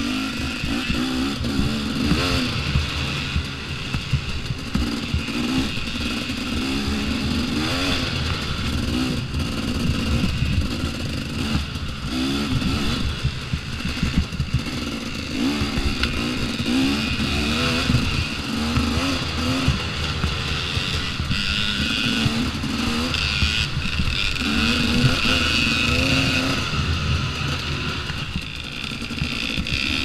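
2014 KTM XC-W 250 two-stroke dirt bike engine, heard close from on board, revving up and falling back again and again as it is ridden along a rough trail, with knocks and rattles from the bike over the bumps.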